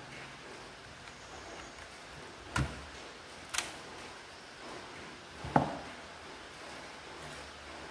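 Battery being unlatched and pulled from the bay of an HP 1000 laptop and set down: three sharp plastic clicks and knocks about a second or two apart, the last the loudest.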